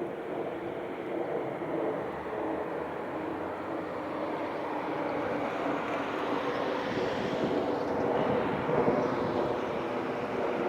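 Aircraft flying over: a steady engine drone that grows louder and brighter in the second half.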